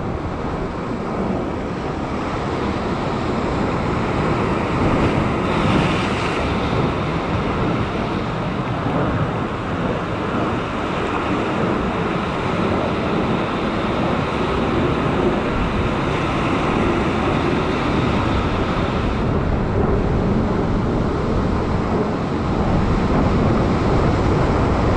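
Ocean surf breaking and washing over coastal rocks, a steady rush that swells louder about six seconds in, with wind buffeting the microphone.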